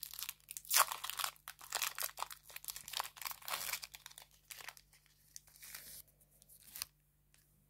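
Plastic wrapper of a hockey card pack being torn open and crinkled by hand: irregular crackling and rustling that stops about seven seconds in.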